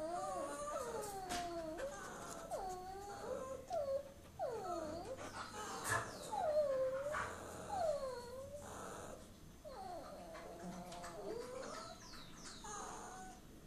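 A dog whining over and over in high, wavering cries that bend up and then down, about one a second, growing fainter near the end: the anxious whining of a dog begging for food.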